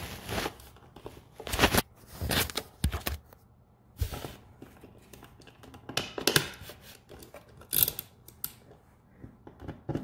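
Irregular clicks, scrapes and rustles of plastic and wire as an outlet is pushed back into a blue plastic electrical box, its wires folded in behind it.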